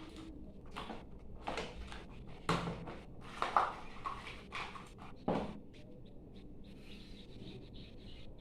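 Handling noise of unboxing: irregular rustles and light clicks as packaging and a charging cable are handled, with a few sharper knocks about two and a half, three and a half and five seconds in.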